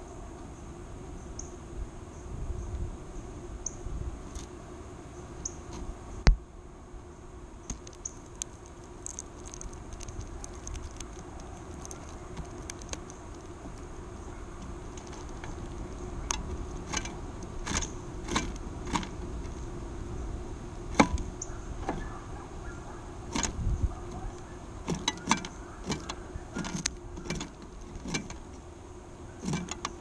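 Birds' beaks pecking and shuffling through sunflower seeds in a feeder tray right at the microphone: irregular clicks and rattles of seeds and husks, coming more often in the second half, over a steady low hum.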